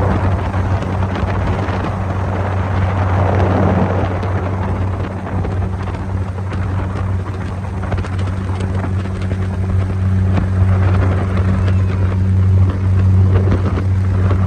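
Motorboat engine running at a steady speed with a constant low hum, over wind and water rushing past the hull.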